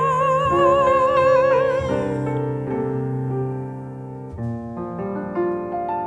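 A woman's voice holds a long sung note with a wide vibrato over piano chords and stops about two seconds in. The piano then plays on alone with soft sustained chords and a few struck high notes, getting quieter as the song closes.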